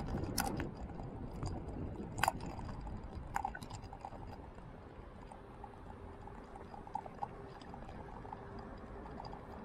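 Low road and wind rumble from riding along an asphalt road, with scattered clicks and rattles, the sharpest about two seconds in. A faint steady hum comes in about halfway.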